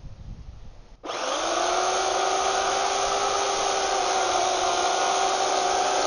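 Small 8-amp electric chainsaw switched on about a second in: its motor spins up in a short rising whine, then runs steadily with the chain cutting into a hardwood railroad tie.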